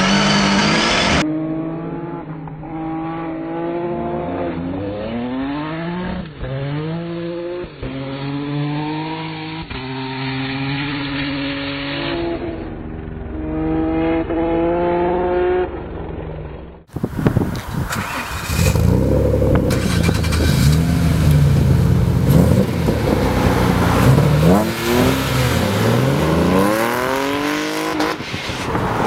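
Ford Focus rally car with a swapped Nissan VR38DETT twin-turbo V6, revving hard and shifting up through the gears again and again. A little over halfway through, a sudden cut to a louder Citroën C2 with twin V6 engines accelerating hard, its engine note rising and falling.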